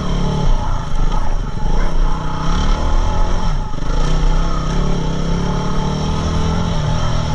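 Yamaha WR250R's single-cylinder engine running under way, with a steady hiss beneath it. The engine pitch dips briefly about halfway through as the throttle comes off, then climbs again.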